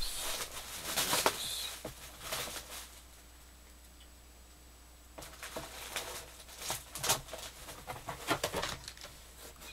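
Plastic packaging wrap crinkling and rustling as it is pulled and cut open, in irregular bursts with a pause of about two seconds in the middle.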